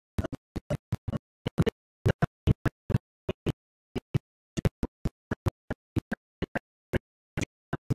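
Choppy, broken-up audio of an animated film's soundtrack: rapid, irregular short blips, about three a second, with dead silence between them, as the sound keeps cutting in and out.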